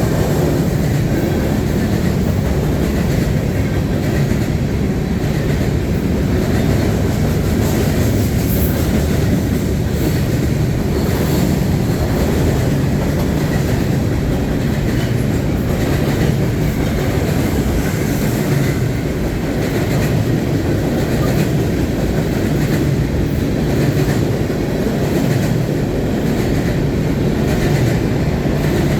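Freight train cars rolling past with a steady, loud rumble and clatter of steel wheels on the rails.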